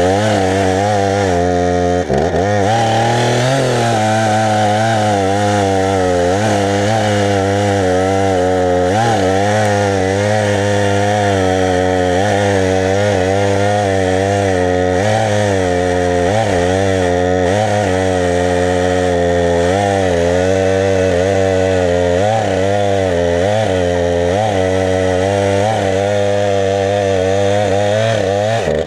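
Husqvarna 455 Rancher two-stroke chainsaw running at full throttle through firewood. Its engine pitch sags and recovers about once a second as the chain loads up in the cut.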